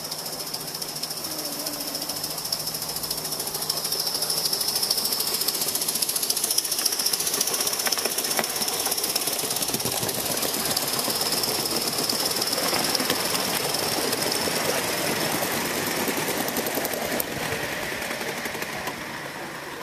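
Gauge 1 live-steam model locomotive running with its train: a rapid, steady clatter of exhaust beats and wheels on the track, growing louder over the first few seconds.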